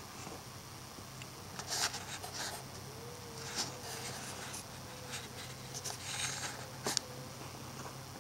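Footsteps crunching in snow: a handful of short, scratchy crunches over a steady low hum.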